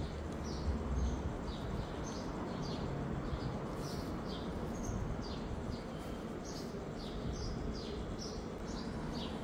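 Small birds chirping in the background, short falling notes a few times a second, over a steady hiss of outdoor noise.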